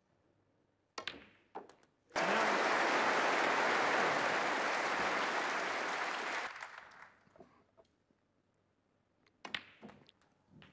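Snooker balls clicking, the cue striking the cue ball and the ball hitting a red, then audience applause for about four seconds that fades away. The applause greets the red that puts the frame out of the opponent's reach. More sharp clicks of cue and balls come near the end.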